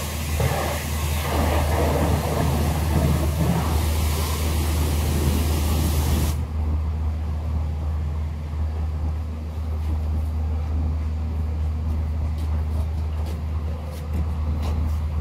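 Pressure washer running: a steady low hum from its motor under a loud spray hiss that cuts off abruptly about six seconds in, leaving the hum and a few light clicks.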